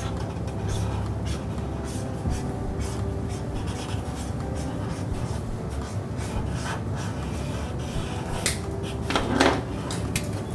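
Felt-tip markers rubbing and scratching on poster paper in short strokes over a steady low room hum, with a louder brief clatter about nine seconds in.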